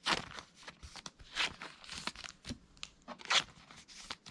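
Clear plastic trading-card sleeves crinkling and rustling in an irregular run of crackles as a card is slid into a sleeve.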